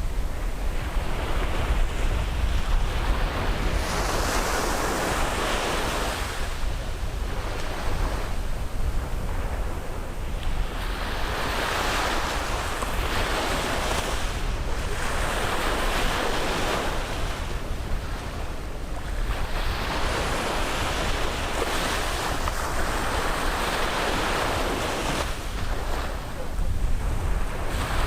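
Sea waves breaking and washing on a beach, each wave a swell of hiss every few seconds over a steady low rumble, with wind buffeting the microphone.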